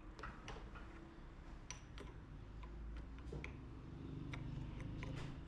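Scattered light clicks and taps, about a dozen at irregular intervals, over a low steady hum: tools and small metal parts being handled at the workbench.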